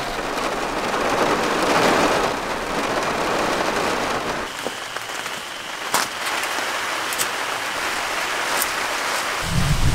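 Steady rain falling and pattering on the camper van's rear window glass, with a few sharp ticks. Near the end a low rumble of thunder begins.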